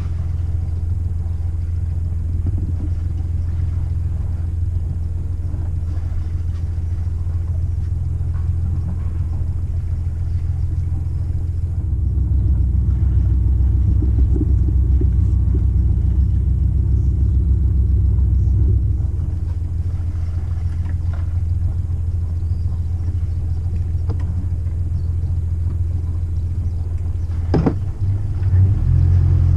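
A sailing yacht's inboard engine running at low speed while manoeuvring in harbour, a steady low rumble that grows louder for about seven seconds midway, then settles. A single sharp knock comes near the end.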